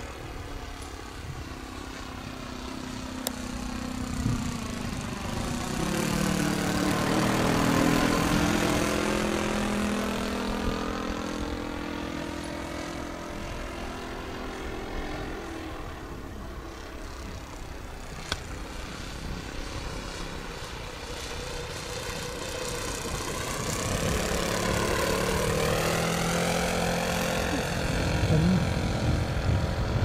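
OS 95 four-stroke glow engine of a radio-controlled de Havilland DH-60 Gipsy Moth model running steadily in flight, growing louder and fading as the model flies past twice, loudest about eight seconds in and again near the end.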